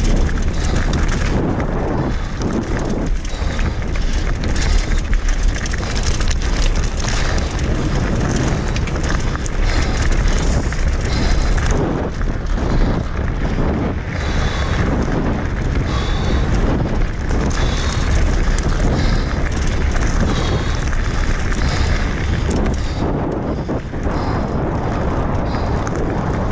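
Mountain bike descending fast on a loose gravel track: heavy wind rumble on the camera's microphone, tyres crunching over stones, and the bike rattling with frequent knocks over bumps.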